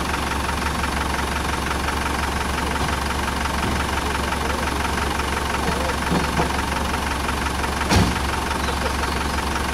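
Land Rover Defender 90 challenge truck's engine idling steadily, with a single sharp knock about eight seconds in.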